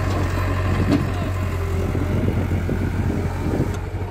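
Diesel engines of a working CAT E70B excavator and a farm tractor hauling a soil trolley, running steadily with a constant low hum. The sound eases slightly near the end.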